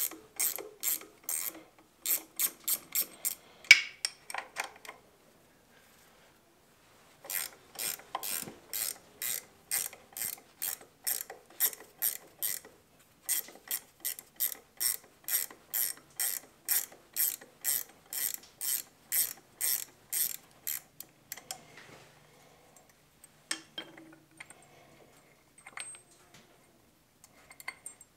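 Hand ratchet wrench clicking in even runs of about three clicks a second, with short pauses, as bolts are backed out at the engine's front drive coupling. Near the end come only a few scattered light clicks.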